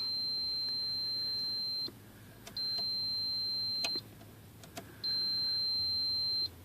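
GT-CVAH parasitic draw tester giving three solid, steady high-pitched beeps, each one to two seconds long, as its probe leads are touched to fuse after fuse, with a few light clicks between them. The solid tone is the tool's signal that each circuit tested is flowing no current.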